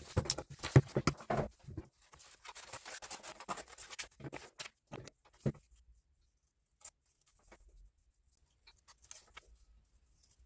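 Scissors cutting printed paper, with paper rustling and being handled. The snipping and rustling are busy for about the first five seconds, then only a few scattered faint clicks follow.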